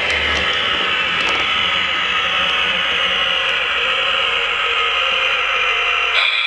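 Lionel LionChief Plus E33 O-gauge model electric locomotive running along the track: a steady whir of its motors and wheels mixed with the RailSounds electric-engine roar from its speaker.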